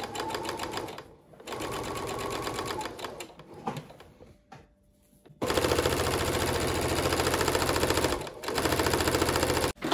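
Brother domestic sewing machine stitching a seam in several runs of a rapid, even rattle, stopping briefly as the fabric is turned. The longest and loudest run starts about halfway through.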